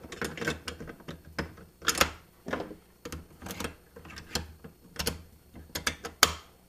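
Irregular metal clicks and clacks from the bolt carrier, recoil spring and dust cover of a WE AK airsoft rifle being fitted back into the receiver by hand, with a sharper clack near the end.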